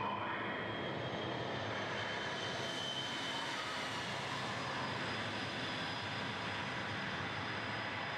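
Jet aircraft engine noise played through loudspeakers as part of a mock aircraft-carrier flight deck exhibit: a steady roar with a faint high whine over it.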